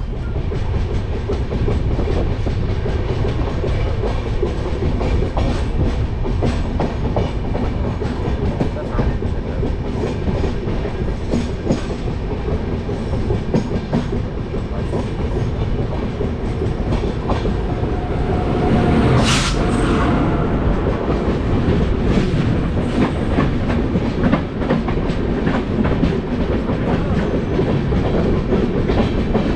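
A passenger train running, with a steady rumble and the wheels clicking over the rail joints. About two-thirds of the way through, a brief sharp louder sound cuts in.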